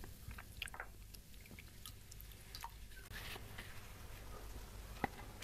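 Faint, scattered small clicks and soft wet sounds of hands being washed before eating, with one sharper click near the end.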